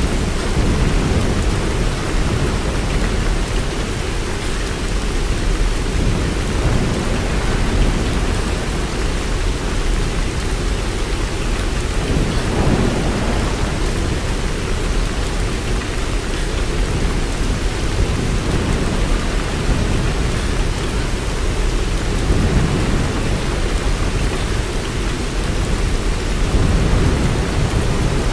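Steady rain falling, with a deep low rumble underneath that swells and fades several times.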